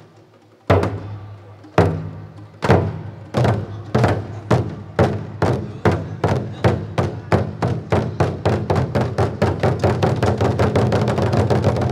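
A group of large drums struck together: after a short pause, single beats about a second apart that speed up steadily until they run together into a fast, continuous drum roll near the end.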